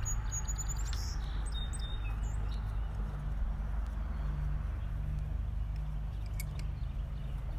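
Steady low outdoor rumble with a few short, high bird chirps in the first couple of seconds.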